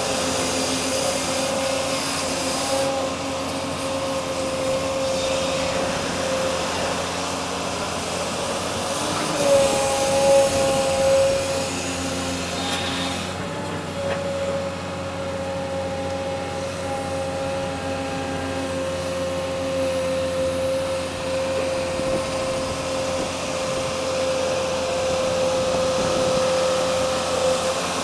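Truck engine running at a steady speed with a steady hum, under rushing wind and road noise. The pitch rises slightly about ten seconds in.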